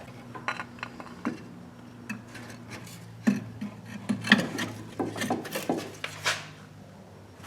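Scattered light clicks and taps of metal parts and tools being handled, over a steady low hum, with a few sharper knocks about three, four and six seconds in.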